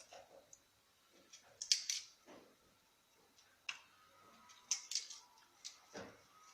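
Scattered clicks and short scrapes of hands-on kitchen work, a knife and utensils handled while a turnip is prepared for a turnip, onion and honey remedy.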